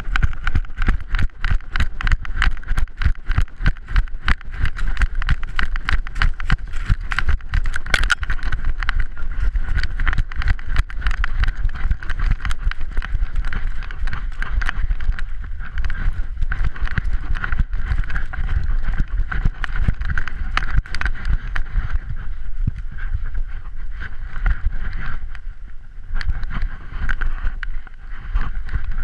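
Handling noise from a GoPro camera in its housing, strapped to a running puppy's harness on a cardboard mount: a fast, continuous patter of knocks and rubs as the mount and harness jolt against the dog with every stride. It eases off briefly a few seconds before the end.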